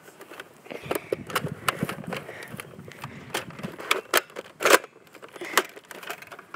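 A string of irregular clicks and knocks over low rustling, with one louder knock about three-quarters through: handling and movement noise during a Nerf blaster game.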